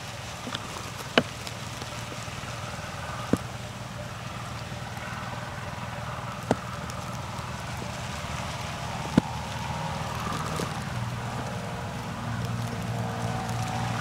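Outdoor background noise with a steady low hum, like a distant engine, that swells in the last few seconds. Four sharp clicks come a few seconds apart.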